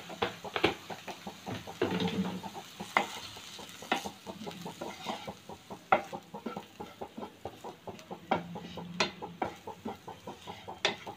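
Wooden spatula stirring chopped onions and spice powder in a nonstick frying pan: a quick, uneven run of taps and scrapes against the pan, over a light sizzle of the onions sautéing in a little oil.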